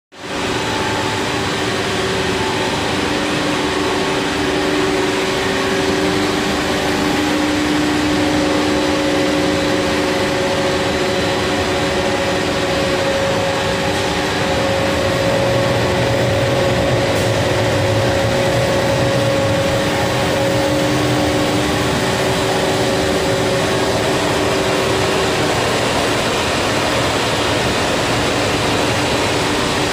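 Plastic pipe extrusion line running: a loud, steady whirr of the extruder's motors and blowers, with a few steady hum tones.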